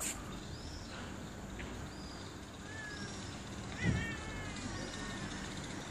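Cats mating: drawn-out, wavering cat yowls, with the loudest, sharpest cry just under four seconds in.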